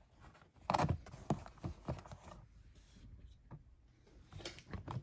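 Plastic door sill trim on a Lexus RX being handled and pressed by hand: a cluster of plastic clicks and knocks about a second in, a few lighter taps after, and another cluster near the end.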